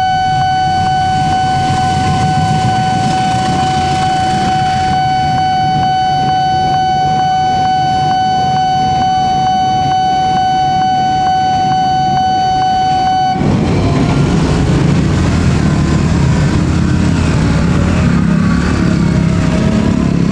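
A railway level-crossing alarm sounds one steady electronic tone over the low rumble of a passenger train passing. About two-thirds of the way through, the alarm cuts off suddenly, and a louder mix of rumble and engine noise takes over.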